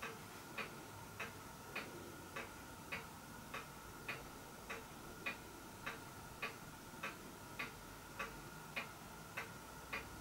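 A clock ticking steadily at a little under two ticks a second, with a faint steady high tone underneath.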